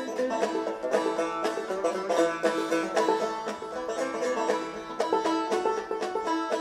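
Background music: a fast picked banjo tune.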